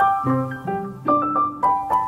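Background piano music: a melody of struck notes over chords, moving at an even pace.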